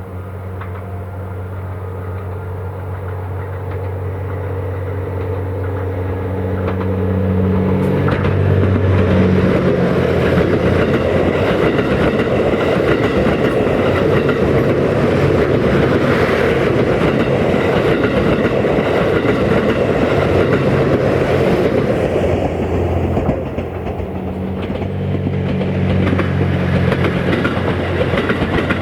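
Series 87 Twilight Express Mizukaze diesel-electric hybrid train passing close by: a low diesel engine drone as it approaches, then a loud, steady rush of wheels on rail as the long train goes by. Near the end the sound drops briefly and a second pass begins, with the engine drone and rail noise rising again.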